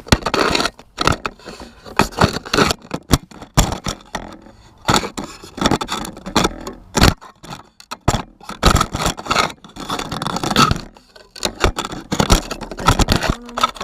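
Close-up handling noise: many sharp clicks, knocks and scrapes in irregular bursts.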